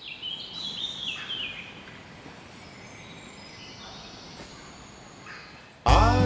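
Wild birds chirping and calling over a soft steady outdoor hiss, busiest in the first two seconds. Near the end an acoustic guitar comes in abruptly and loudly with strummed chords.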